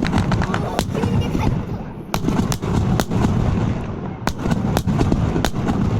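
Aerial fireworks shells bursting overhead: a rapid, irregular series of loud sharp bangs, about two a second, over a continuous booming rumble.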